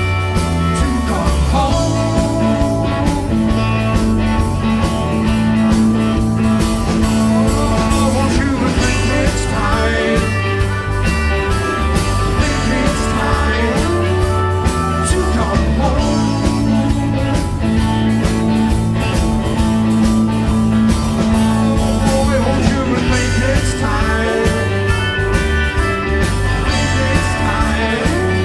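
Live rock band playing at a steady, loud level: electric guitars, bass guitar, drums and synthesizer keyboard.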